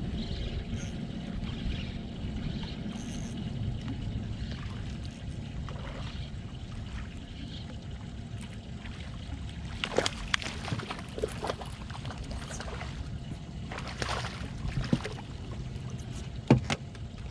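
Water lapping against a small boat's hull, with a few short bursts of splashing and knocking in the second half as a small hooked snook is fought to the boat and landed.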